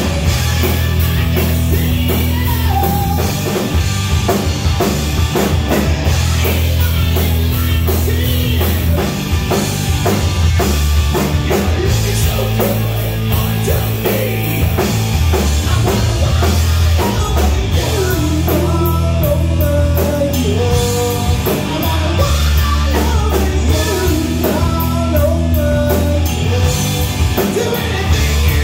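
A live rock band playing loud: electric guitar, electric bass and a drum kit.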